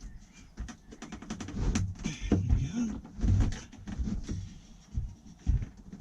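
Irregular knocks, scrapes and low thumps of a Thetford N104 fridge being worked into its housing, with wooden packing pieces squeezed in around it.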